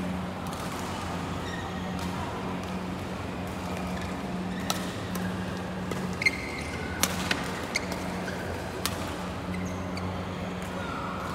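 Badminton rackets striking shuttlecocks in a string of sharp pops between about five and nine seconds in, with a short squeak among them, over a steady low hum and the hall's background noise.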